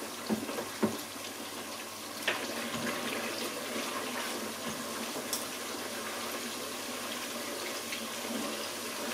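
A couple of knocks from a wooden spoon in a plastic bowl, then about two seconds in a steady sizzling hiss with faint crackles from a pot frying on the stove.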